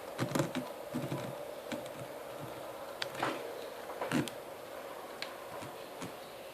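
Irregular light clicks and taps, a few louder ones near the start, about three seconds in and about four seconds in, over a steady faint hum.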